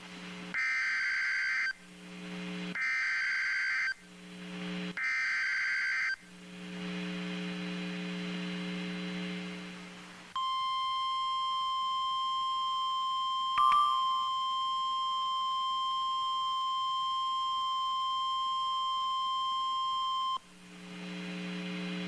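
Emergency Alert System activation on NOAA Weather Radio. Three short bursts of SAME header data screech, each about a second long, are separated by a low buzz. A steady low hum follows for a few seconds. Then the 1050 Hz warning alarm tone sounds as one steady beep held for about ten seconds, with a brief click partway through; it signals that a warning-level message, here a severe thunderstorm warning, follows.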